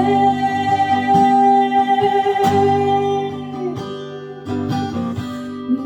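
Acoustic guitar accompaniment: strummed chords left ringing, with a fresh strum about two and a half seconds in and lighter playing near the end.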